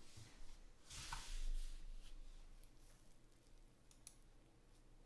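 Quiet room with a brief rustle about a second in, followed by a few faint light clicks.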